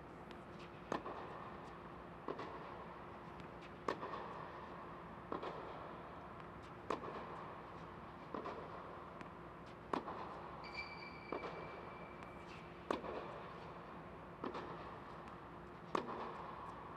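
Tennis balls struck by racket in a baseline rally: a sharp hit about every second and a half, alternating louder and softer, each echoing in the large hall, with lighter ball bounces between. A steady low hum runs underneath, and a high squeak lasting about two seconds comes about two-thirds through.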